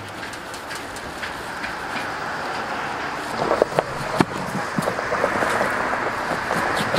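Knife cutting the rind off a whole pineapple: scraping, crunchy cuts that grow louder and denser in the second half, with a few sharp knocks a little past halfway. A steady background noise runs underneath.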